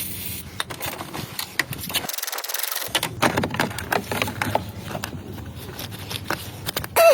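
Irregular clicking, knocking and scraping of car parts being handled and worked on with tools during a horn installation. A short, louder sound with a falling pitch comes near the end.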